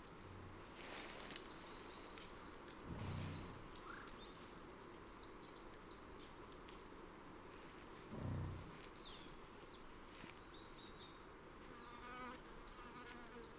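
Faint open-grassland ambience of bird chirps and insect buzzing, with short high calls scattered throughout and one longer high whistle about three seconds in. Two brief low grunts from American bison, about three and eight seconds in.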